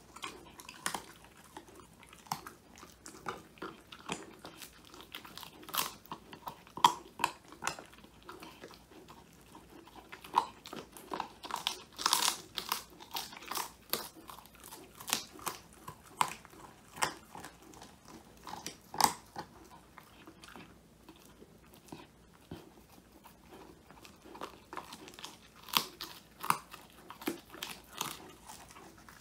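Old English Sheepdog puppy chewing a homemade whole-quail treat: irregular sharp crunches of the treat breaking between its teeth, with a quieter spell about two-thirds of the way through.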